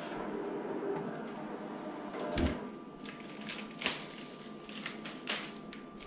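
Graphtec cutting plotter running a short test cut in window tint film, its motors humming steadily, and stopping about two seconds in. Then the cut film is handled and peeled by hand, with a thump and a few sharp crinkles and snaps.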